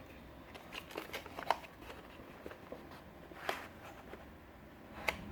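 Small retail box being opened by hand: scattered light clicks and rustles of cardboard and packaging, with a few sharper clicks spread through.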